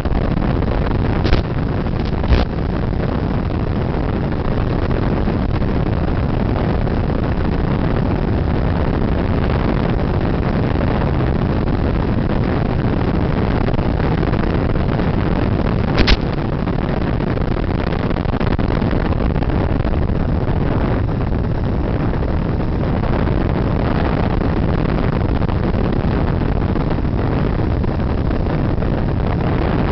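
Steady rushing airflow noise on the onboard camera microphone of an FPV model plane in flight. Sharp clicks come about a second in, again a second later, and once around the middle.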